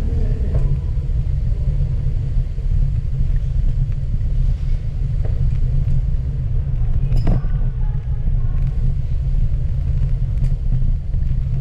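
Steady low rumble of wind buffeting the microphone while riding along a paved path, with one short click about seven seconds in.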